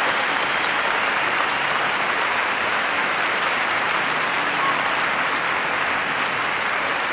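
Crowd applauding: dense, even clapping.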